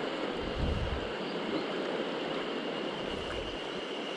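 Mountain stream flowing with a steady rushing sound, and a short low bump on the microphone about half a second in.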